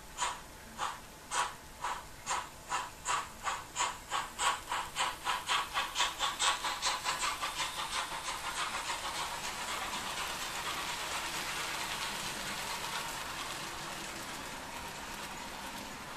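TT-scale model steam locomotive's sound decoder playing exhaust chuffs that quicken steadily as the engine gathers speed, from about two a second to a rapid beat, then blur into a continuous steam hiss about halfway through.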